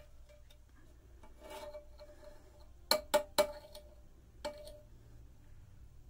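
A batik tjanting tool clinking against the wax pot: a soft rub, then three sharp taps in quick succession and one more about a second later, each with a short metallic ring.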